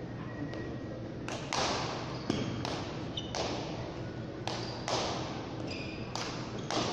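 Frontball rally: the ball is struck by hand, smacks against the front wall and bounces off the floor, giving about ten sharp, echoing impacts, mostly in quick pairs, from about a second in. Under them is a steady murmur of the hall.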